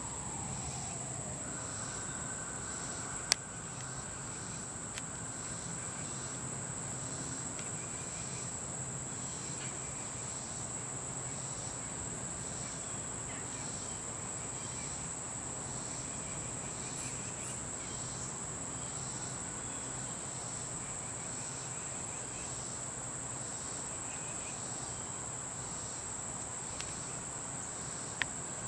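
Steady, high-pitched insect chorus, with a fainter pulse repeating about once a second. A falling tone dies away right at the start, and a single sharp click comes about three seconds in.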